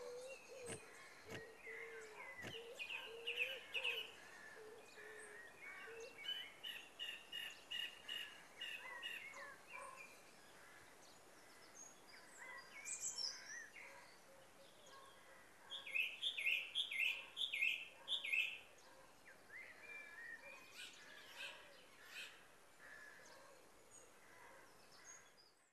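Wild birds calling: many scattered chirps and short whistled calls, with a loud quick run of about six chirps some sixteen seconds in. A low steady hoot sounds for the first four seconds, and three soft knocks come in the first three seconds.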